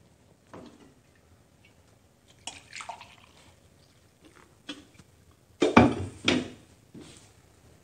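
Kitchen clatter: dishes and utensils being handled and knocking against a counter, a few scattered knocks with a louder run of clattering a little past halfway through.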